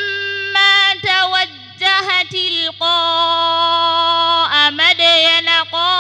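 A woman reciting the Qur'an in the melodic, drawn-out mujawwad style, gliding between notes and holding one long steady note about halfway through. A steady low electrical hum runs underneath.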